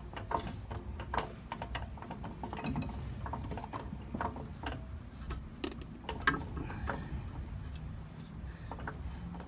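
A jack being worked to raise a lower suspension arm: irregular metal clicks and clanks, about one a second, the loudest a little past the middle.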